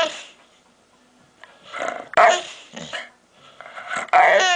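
A pet dog making strange vocal noises: two drawn-out outbursts about two seconds apart, the second ending in a pitched cry that falls away.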